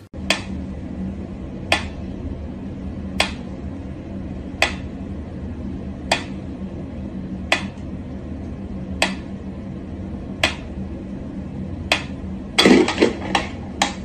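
Mechanical pyramid metronome ticking slowly, one sharp click about every second and a half, over a steady low hum. Near the end, a quick flurry of louder knocks.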